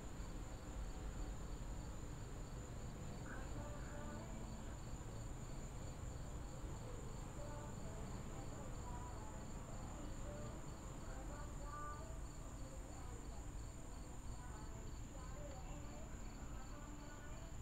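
Crickets trilling in a steady, high-pitched chorus, with a second, lower trill that pulses evenly.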